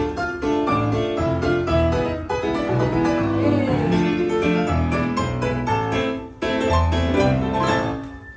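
Piano music in the style of a Filipino kundiman, with chords over low bass notes and brief breaks about two and six seconds in.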